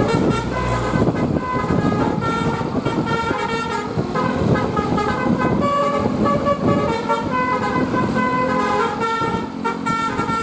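Telolet Basuri musical bus horn on an SJM Trans bus playing a quick multi-note tune, the notes switching every fraction of a second, over a steady background of noise.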